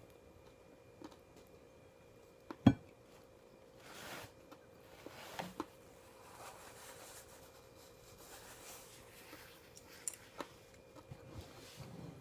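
Tableware and food packaging being handled during a meal: one sharp knock about two and a half seconds in, then soft rustling and a few light clicks.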